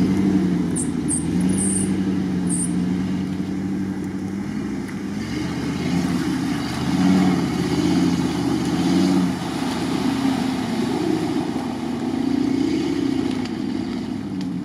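Jeep Grand Cherokee WJ engine working hard in deep mud, its revs rising and falling several times as the driver gets on and off the throttle.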